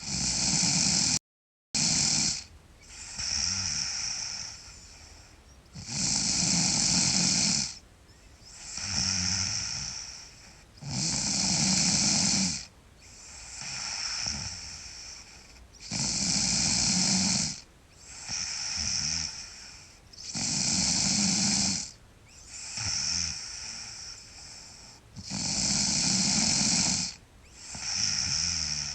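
A sleeping girl snoring loudly in a steady breathing rhythm: a long, loud snore about every five seconds, each followed by a shorter, softer one.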